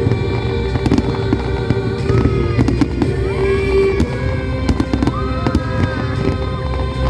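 Fireworks bursting and crackling overhead in a steady stream of sharp bangs, with music playing underneath.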